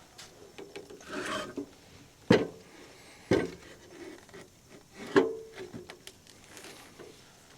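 Wooden boards being slid and set in place under a heavy slab: a scraping rub, then three sharp knocks with smaller taps between.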